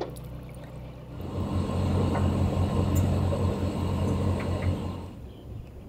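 A yacht's inboard engine running under way: a steady low hum that grows louder about a second in and drops back about five seconds in.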